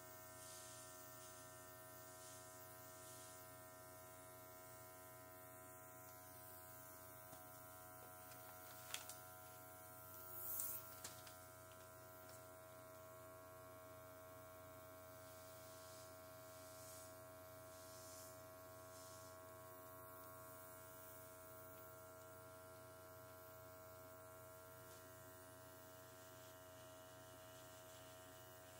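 Faint, steady hum of an airbrush compressor, with a short hiss of air from the airbrush about ten seconds in.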